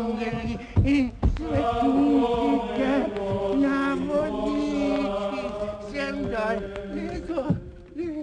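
Voices chanting a slow melody of long held notes. Sharp knocks sound about a second in, and a heavier thump comes near the end.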